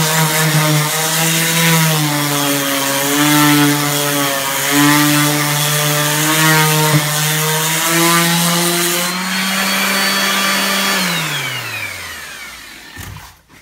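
DeWalt random orbital sander with 40-grit paper sanding a wooden stair tread, its motor hum dipping and rising as it is pressed and moved. About nine seconds in the scraping stops and the motor runs on alone a little higher, then it is switched off and winds down to a stop near the end.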